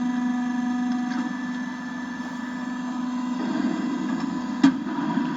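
Hydraulic hose crimping machine running, its pump motor giving a steady hum with a held tone that drops away about three and a half seconds in. A single sharp click sounds near the end.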